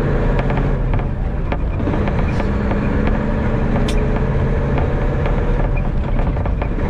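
Truck engine running with a steady drone, heard from inside the cab, with light rattles and ticks throughout.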